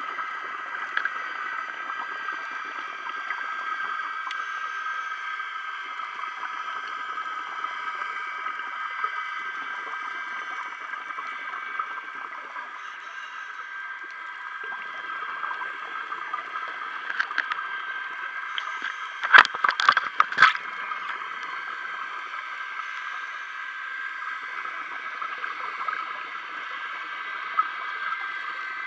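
Muffled underwater noise picked up through a sealed action-camera housing on a scuba dive: a steady hiss with faint held tones. About two-thirds of the way through comes a quick cluster of sharp knocks.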